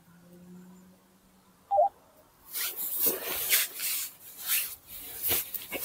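A faint low hum, then a short electronic beep a little under two seconds in, followed by irregular rustling and knocking from handling close to the microphone.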